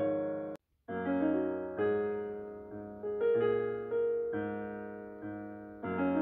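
Background piano music: chords struck about once a second, each fading away before the next. It drops out to silence briefly about half a second in.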